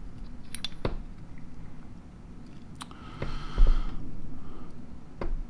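Small metal parts of an Ingersoll-Rand 1-inch air impact wrench clicking and scraping as its selector knob and valve shaft are pried and slid out of the housing. There is a short scrape and a dull knock about three and a half seconds in.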